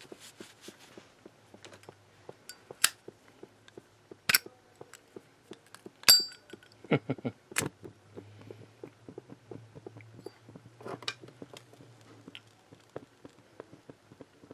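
Zippo lighter being handled: a handful of sharp metallic clinks and knocks, the loudest about six seconds in with a brief ringing ping, the sound of the hinged steel lid snapping open and shut. A faint quick ticking runs underneath.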